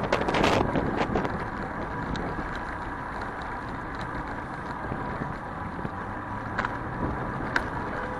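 Traffic and road noise heard from a bicycle riding through city streets, with wind on the microphone, steady throughout. A few sharp clicks or knocks break in, most just at the start and two near the end.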